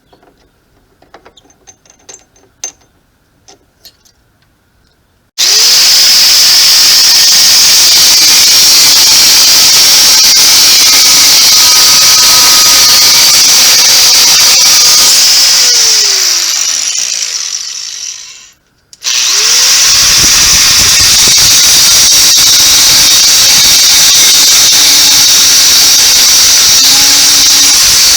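A loud electric power tool starts up after a few quiet clicks and runs steadily at full speed with a high hiss, is switched off and winds down with a falling whine, then starts again and keeps running.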